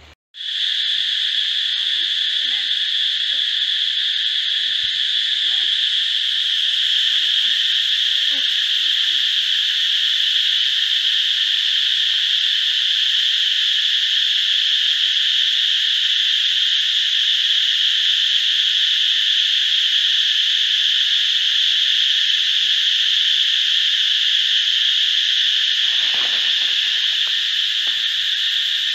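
Loud, steady, high-pitched drone of a chorus of insects, setting in abruptly just after the start and holding without change.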